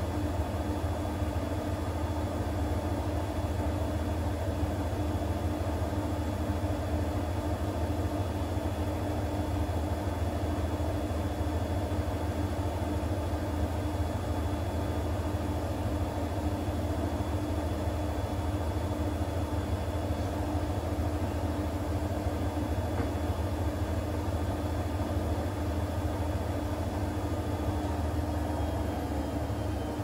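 Siemens front-loading washing machine in its intermediate spin after the first rinse: the drum and motor spin at a constant speed, giving a steady low hum with a faint high whine over it.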